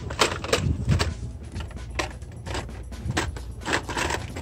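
Hot Wheels cars in plastic blister packs clicking and rattling against one another as they are flipped through on the store pegs, a string of quick, irregular clacks.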